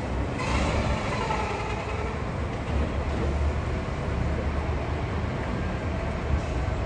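Fire truck's diesel engine running as the truck pulls away down the street, a steady low rumble, with a brief hiss about half a second in.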